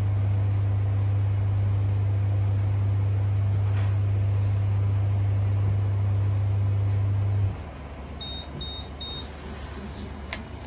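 Microwave oven running with a steady low hum that stops about seven and a half seconds in. Three short high beeps follow, signalling the heating cycle is done, and a single click comes near the end.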